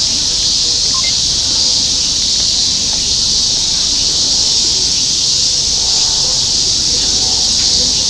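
Cicadas in the surrounding trees singing in a steady, unbroken high-pitched drone.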